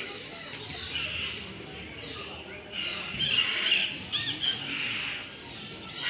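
Birds squawking, several short, harsh calls: one about a second in and a quick run of them between three and four and a half seconds.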